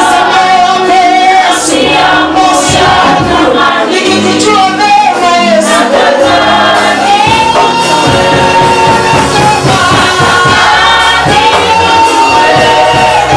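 Live gospel worship singing: a group of voices singing together over band accompaniment, with long held notes in the second half.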